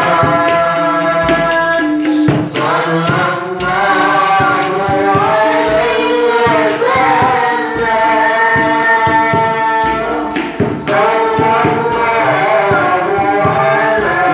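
Sholawat, Islamic devotional song, sung into microphones, first by a man and then by a woman, over a steady percussion beat.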